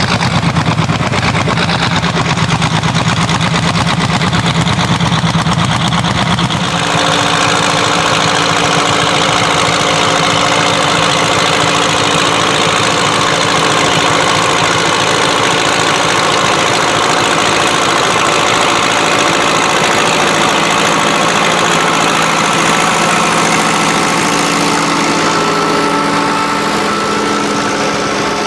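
1953 Steyr 280 tractor's four-cylinder diesel engine running steadily under load while pulling a plough. About seven seconds in the sound changes abruptly, from a heavy low rumble to a brighter, steadier engine note.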